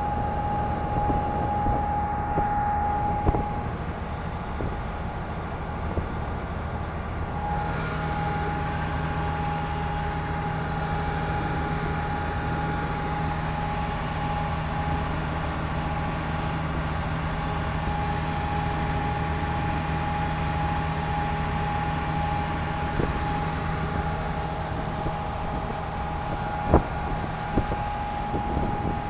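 Steady engine drone with a constant higher tone running through it; a deeper hum joins about a quarter of the way in, and a couple of brief knocks sound over it.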